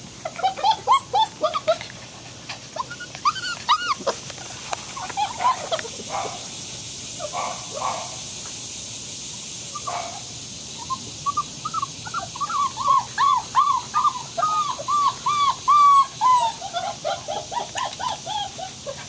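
Six-week-old German Shepherd and Labrador mix puppies whimpering and yipping in short, high, rising-and-falling whines, scattered at first, then a quick unbroken run of them, two or three a second, from about the middle to near the end.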